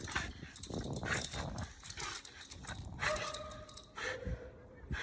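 An American bully dog scuffling and tugging at something, with irregular knocks and rustling and a short whine-like note about three seconds in.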